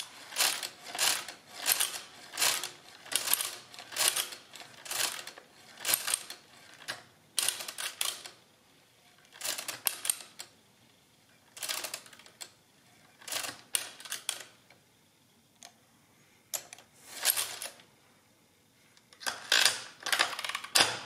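The crank of a 1920s Monroe model K mechanical calculator is turned by hand, and its exposed gear train and mechanism clatter in a run of short bursts. The bursts come quickly one after another for the first several seconds, then in spaced groups with pauses between them.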